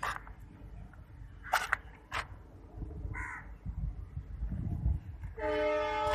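Crows cawing a few times over a low steady rumble, then near the end a horn sounds one long level blast.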